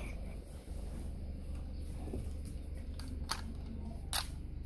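Handling noise on a phone microphone: a steady low rumble with a few sharp clicks in the second half.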